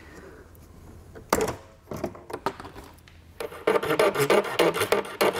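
A hand file rasping in quick back-and-forth strokes along the freshly cut edge of a plastic bumper fascia to clear the burrs, starting about three seconds in. Before it come a sharp click and a few lighter ones.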